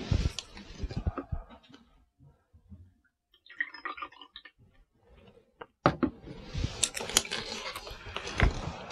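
Ramen being eaten with chopsticks: clicks on the bowl and eating noises. About four seconds in comes a short glugging pour of soju from a glass bottle into a small glass.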